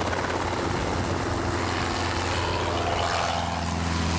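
Helicopter running steadily, with a constant low engine and rotor hum.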